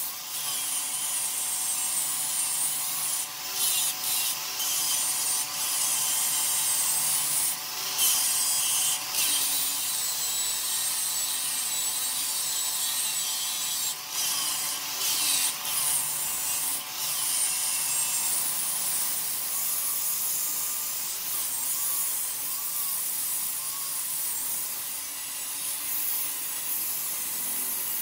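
Wood lathe running with a steady faint motor hum while something scrapes against the spinning wood, making a continuous hissing rub. The rub is broken now and then by brief sharp knocks and short pauses.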